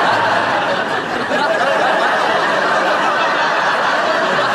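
Sitcom studio audience laughing, a sustained loud crowd laugh.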